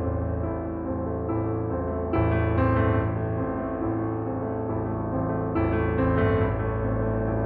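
Background music led by piano or electric piano, with sustained chords struck every couple of seconds over a steady low bass.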